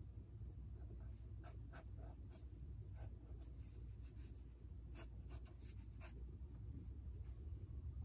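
Ink pen scratching across sketchbook paper in short, quick hatching strokes, faint over a low steady hum. A quick run of strokes comes about five to six seconds in.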